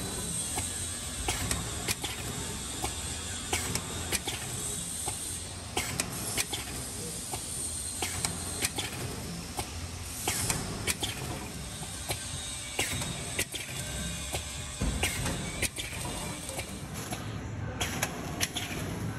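Multi-lane stick pack packaging machine running: a steady mechanical hiss and hum with repeated short clacks, about one or two a second, as the packs are sealed and cut.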